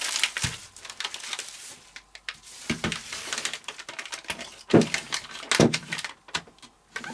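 Bubble wrap and foil anti-static bags crinkling as two packaged hard drives are pulled out, then several dull knocks as the heavy drives are set down on a wooden table. The loudest knock comes about five seconds in.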